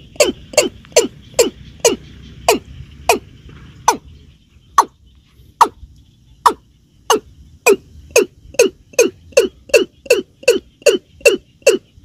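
Watercock (keb-keb) calling: a series of short, hollow notes, each dropping in pitch, about three a second at first, slowing to roughly one a second in the middle, then quickening again near the end.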